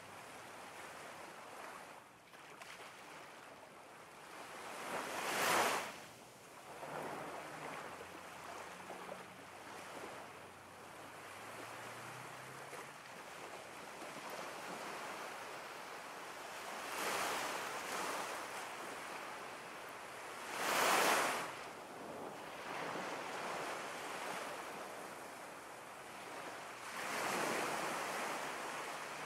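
Ocean surf: a steady rush of waves that swells into a louder breaking wave four times, the strongest about five seconds in and again about twenty-one seconds in.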